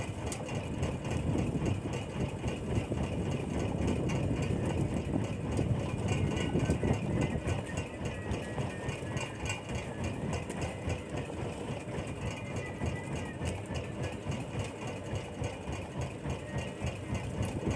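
Fishing boat's engine running steadily at sea.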